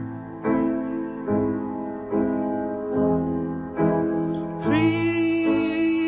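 Piano demo recording: chords struck a little under once a second, then near the end a man's voice comes in over them, holding one long sung note.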